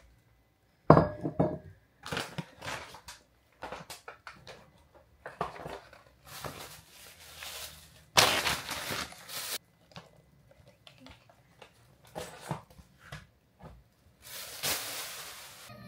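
Groceries being unpacked on a kitchen counter: a glass bottle set down with a sharp knock about a second in, then scattered clinks and knocks, and paper and plastic grocery bags crumpled and rustling in several longer stretches.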